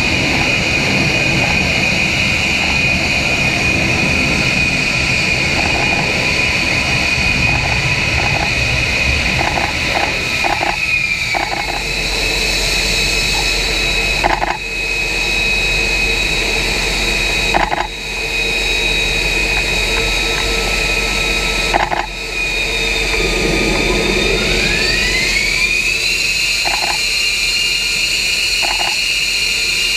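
F-35B Lightning II jet running on deck in STOVL configuration with its lift fan open: a loud roar under a steady high whine. The whine slides down in pitch about a third of the way in and climbs back up near the end. The sound breaks off briefly three times.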